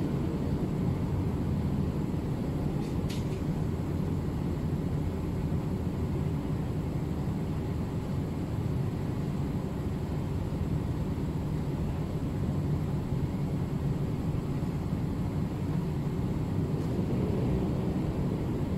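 A steady low rumble of background noise that does not change, with one faint short click about three seconds in.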